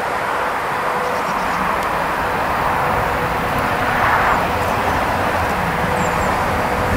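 Steady distant rumble of an approaching freight train, with a faint steady tone running through it.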